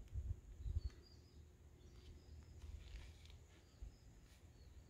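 Faint outdoor ambience: scattered short, high chirps of small birds or insects over a low rumble, with a few dull thumps on the microphone in the first second.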